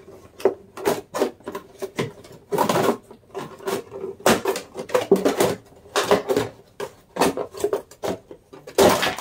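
A plastic gallon milk jug being handled and pressed, its thin plastic crackling and knocking irregularly, then cut with scissors near the end.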